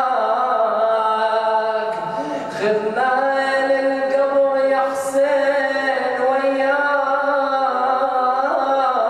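A solo male voice chanting a Shia mourning elegy (latmiya) without instruments, holding long wavering notes with one short break and glide in pitch about two to three seconds in.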